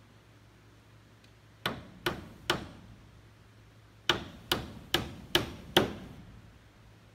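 Hammer nailing a wooden board-and-batten siding board: three blows, a short pause, then five more, about two and a half blows a second.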